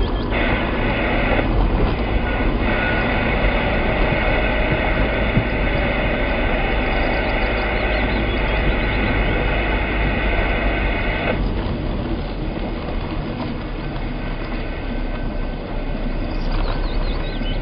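A car driving along a road: steady engine and tyre rumble. A high, steady whine joins it right at the start and cuts off sharply about eleven seconds in.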